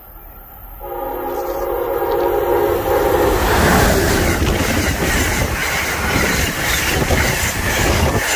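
Amtrak passenger train passing close at speed: its horn sounds a long chord starting about a second in, then the loud rush and rumble of the train and its steel wheels on the rails takes over as the coaches go by.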